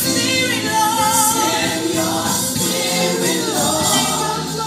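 Recorded gospel music: a choir singing a slow, sustained melody over steady low accompanying notes.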